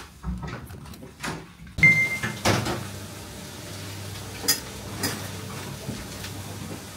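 Scattered knocks and clicks of household handling, such as a cupboard or door, over a low steady hum, with a short high beep about two seconds in.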